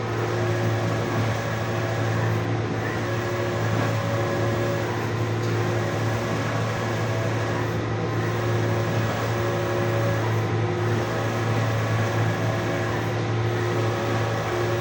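Printing machine running with a steady low hum and whirr, its mechanism going through a repeating cycle about every two and a half to three seconds.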